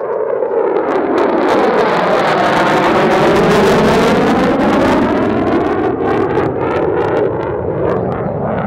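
EA-18G Growler's twin F414 turbofan engines at high power in a pass: a loud jet roar that builds over the first second, peaks in the middle and eases a little near the end, with a swirling, phasing sweep running through it.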